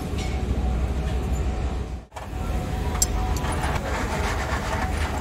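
Steady low mechanical rumble, like a running engine, broken for an instant about two seconds in, with a few light clicks after it.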